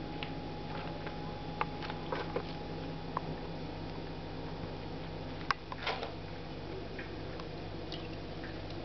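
Degus moving about in their cage: a few scattered light clicks and a brief rustle over a steady low hum.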